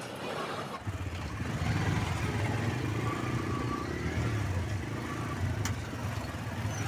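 A freight train's rumble for the first second, then the steady running of several motorcycle and scooter engines in a crowd of traffic.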